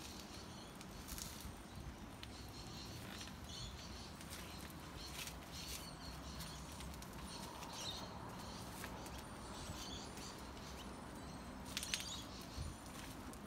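Faint, scattered bird chirps over a low background hiss, with a few sharp clicks, the loudest near the end.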